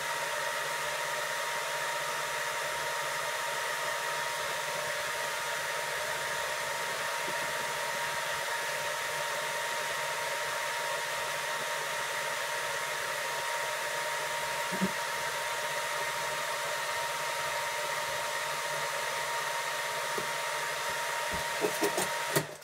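Svarog REAL ARC-315 welding inverter running under a 200 A test load: a steady rush of cooling-fan air with a faint steady whine. A few clicks come near the end, then the sound cuts off suddenly.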